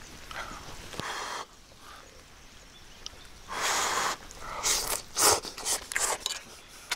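A metal fork twirling spaghetti and scraping against a cast-iron skillet, with several short breathy noises in the second half.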